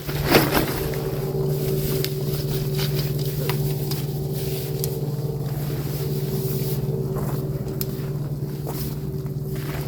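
A steady engine hum runs throughout, with scattered light clicks and knocks and a louder clack just after the start.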